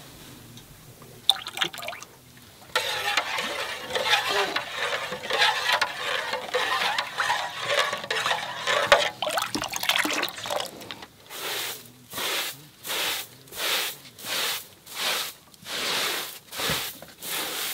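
Water poured from a kettle into a metal pot of yogurt and stirred with a spoon, a splashing, sloshing sound for several seconds. Then a straw broom sweeping a rug in even strokes, a little more than one a second.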